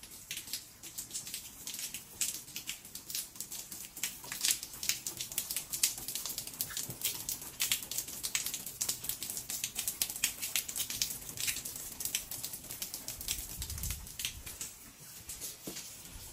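Rain pattering and dripping: many small drops tapping close by in quick, irregular succession, with a brief low rumble near the end.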